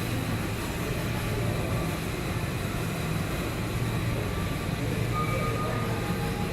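Steady low rumble of big-store background noise, with a few faint short tones higher up.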